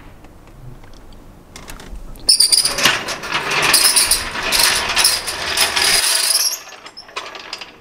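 Low-profile trolley jack wheeled across the floor on its casters, giving a loud metallic rattling clatter. It starts a couple of seconds in, lasts about four seconds, then stops.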